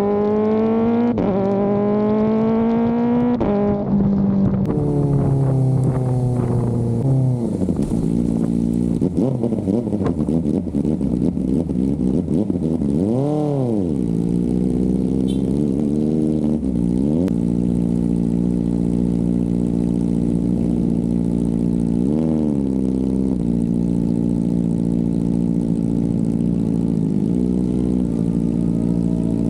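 Kawasaki ZX-4RR's inline-four engine under way on a race track. In the first seconds it accelerates through the gears, pitch climbing with two quick upshifts. Afterwards the revs swoop down and back up several times for corners between spells of steady running, with wind noise on the microphone.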